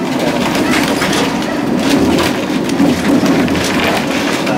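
Old Lisbon tram 28 tramcar running, heard from inside the car: a loud, steady clatter and rattle of the car and its wheels on the rails over a low rumble.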